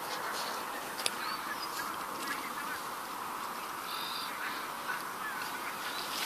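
Faint, brief bird calls over a steady outdoor hiss, with a short high squeak about four seconds in.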